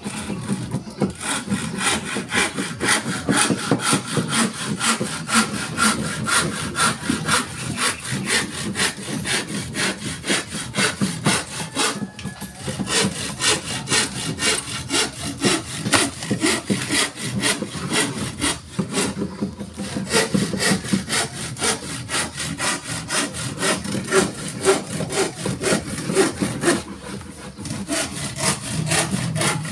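Wood being cut with a hand saw in quick, even back-and-forth strokes, pausing briefly a few times.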